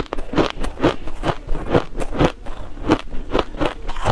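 Crushed shaved ice being chewed and crunched between the teeth: a steady run of crisp crunches, about three a second.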